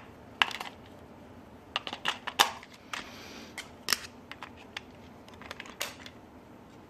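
Scattered sharp clicks and taps of AAA batteries being pressed into a plastic remote control's battery compartment, with a brief rustle about three seconds in.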